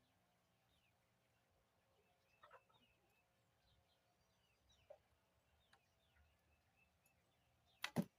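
Mostly quiet with faint bird chirps, then near the end a sharp, loud double crack as an arrow is shot from a red maple Comanche-style platform bow.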